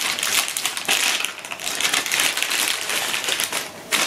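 Clear plastic bag crinkling and rustling in the hands as a small Barlow lens is unwrapped from it, a dense run of irregular crackles.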